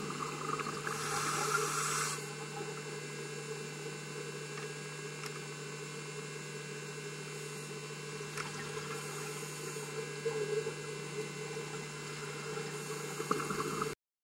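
Underwater recording of a scuba diver breathing through a regulator: a burst of hissing breath about a second in and another near the end, over a steady low hum. It cuts off suddenly just before the end.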